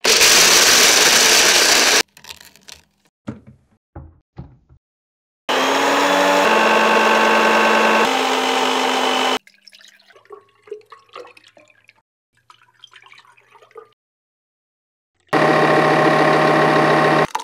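Electric blender motor running at speed in three separate bursts, each starting and stopping abruptly, with a steady whine over the churning; in the middle burst the whine drops a step in pitch once. Between the bursts there are scattered knocks and faint clatter.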